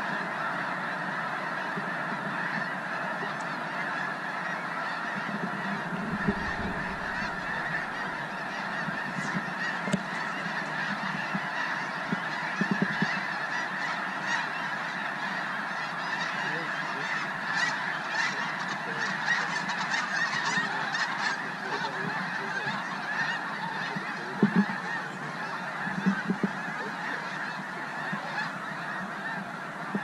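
A huge flock of snow geese calling all at once: a dense, unbroken chorus of honking. A few brief low thumps stand out about six, twelve and twenty-five seconds in.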